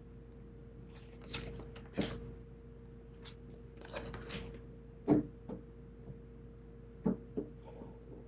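Tarot cards being handled on decks laid on a cloth: cards slide and rub as they are drawn off, then land with sharp taps, a pair about halfway through and another pair near the end, as they are set down and squared. A steady low hum runs underneath.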